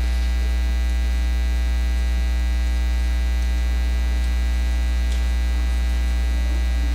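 Steady electrical mains hum with a buzzy edge, loud and unchanging.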